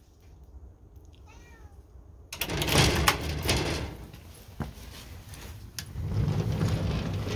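A black-and-white house cat meows faintly about a second in. Then a sliding lattice front door is opened with a sudden loud clatter of clicks and scraping, which eases and swells again near the end.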